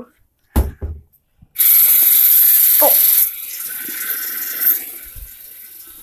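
A couple of knocks, then a sink tap turned on about one and a half seconds in: water gushing loudly into the basin, then settling to a quieter steady stream.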